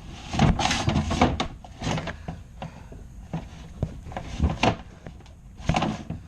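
Dryer-vent cleaning rods and duct scraping and knocking: a string of short rubs and sharp knocks, busiest at the start, with a quieter stretch in the middle before a few more knocks near the end.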